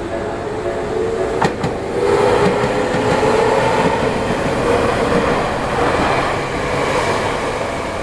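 A Tokyu Tamagawa Line electric commuter train runs over a level crossing. The crossing's warning alarm rings its repeated tones at first, and a couple of sharp clicks come about a second and a half in. From about two seconds in, the loud rumble and clatter of the passing train covers the alarm.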